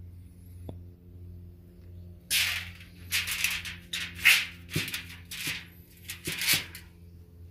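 Aluminium foil crinkling in a string of short rustles as it is handled around a piece of stabilized wood, over a steady low hum.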